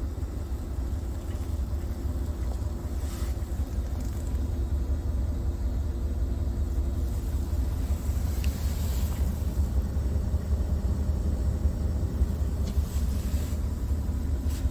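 Scania R tractor unit's diesel engine idling steadily, a constant low rumble heard from inside the cab.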